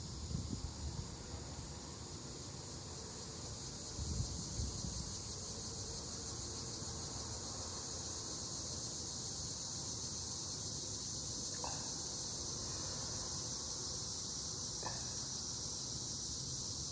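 Steady, high-pitched drone of an insect chorus, unbroken throughout.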